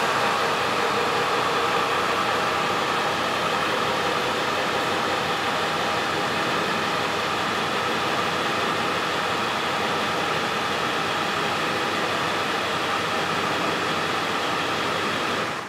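Ambulance engine idling steadily, heard close up, with an even noisy hum; it is shut off near the end and the sound falls away quickly.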